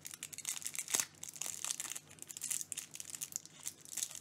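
Clear plastic pen sleeve crinkling and crackling in the hands as a fountain pen is worked out of it, with the sharpest crackle about a second in.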